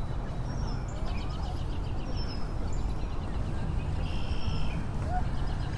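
Outdoor background: a steady low rumble with birds chirping, including a quick high trill about a second in and another near the end.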